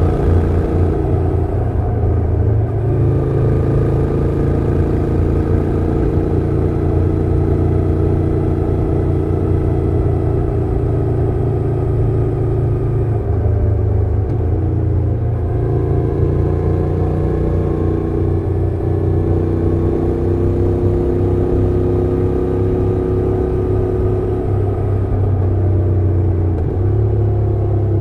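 2024 Honda NC750X's parallel-twin engine and exhaust running steadily while the bike is ridden, the engine note stepping to a new pitch a few times as the revs change.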